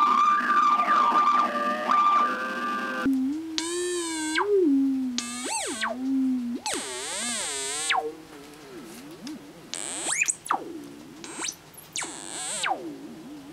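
Homemade light-to-sound synthesizer, a light-to-frequency sensor driving Atari Punk Console-style oscillators, putting out warbling, swooping electronic tones that shift pitch as it is pointed at different lights. About three seconds in the sound changes abruptly from a held high tone with wavering lines to lower wobbling glides, later broken by short rising and falling sweeps and buzzy high bursts.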